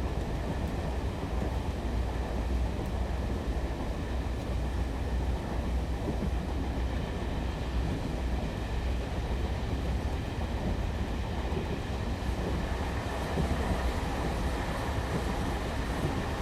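Diesel train running at a railway station, a steady low engine rumble under the general station noise.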